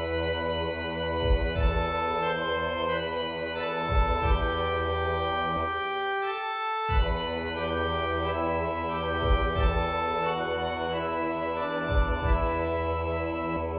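Software organ in GarageBand playing slow, sustained hymn-like chords over a deep bass. Paired low thuds come about every two and a half seconds, and the bass drops out briefly about six and a half seconds in.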